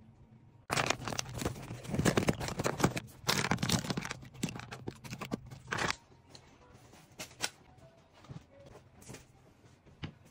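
Plastic bag crinkling and rustling as it is handled, dense and loud for about five seconds, then only a few light rustles and clicks.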